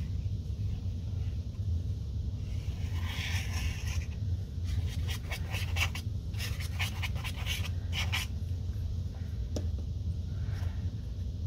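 Cardstock being handled and laid onto a card base, with a run of quick scraping, rustling strokes in the middle and a single click near the end, over a steady low hum.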